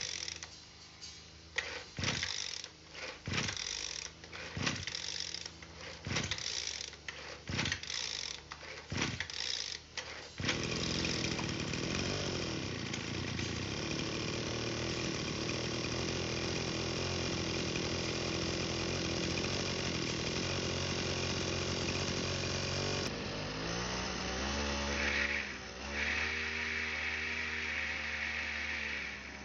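Kyoritsu SRE235 brushcutter's small two-stroke engine being pull-started: a run of recoil-starter pulls about a second apart, then it catches about ten seconds in and keeps running steadily. Near the end the engine speed dips and rises a few times.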